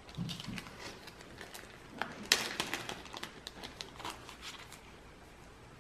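Crinkling and crackling of a small clear plastic bag as it is handled and pulled open to get at the O-rings, with a sharp crackle about two seconds in and a couple of soft knocks at the start.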